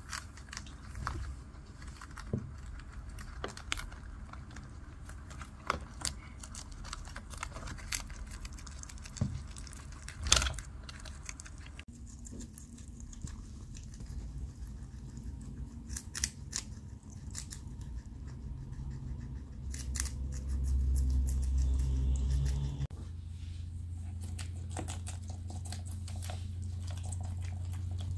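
Guinea pigs chewing raw vegetables: irregular sharp crunching clicks as they bite into lettuce, carrot and cucumber. A low steady hum runs underneath.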